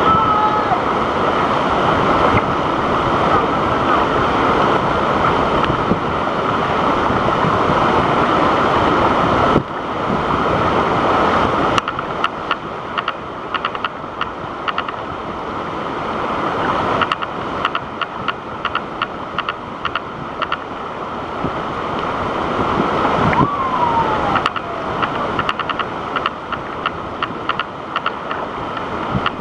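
Waterfall: a loud, steady rush of falling water that drops in level abruptly about ten seconds in. From about twelve seconds in, frequent short crackles sit on top of the rush.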